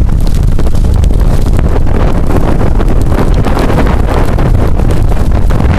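Hurricane wind buffeting the microphone in a loud, steady rumble.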